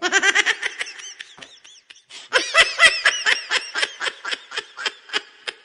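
A laughing ringtone: a voice laughing in quick, pitched ha-ha bursts. The first run fades out over the first two seconds, and a second, louder run starts about two and a half seconds in.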